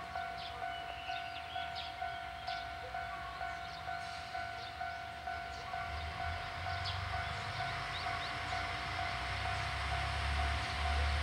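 Low diesel engine rumble of a KTR001 Tango Explorer diesel railcar approaching, growing louder from about halfway through. A steady high tone runs underneath, with short chirps above it.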